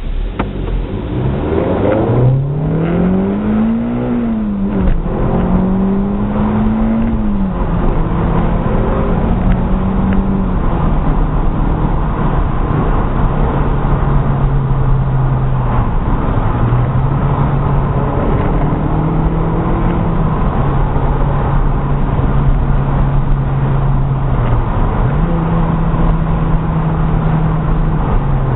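Renault Clio 197's 2.0-litre four-cylinder engine heard from inside the cabin, revving hard, its pitch climbing and dropping at two gear changes within the first eight seconds. It then runs at steadier, lower revs with a few brief dips and pick-ups, over steady road and tyre noise.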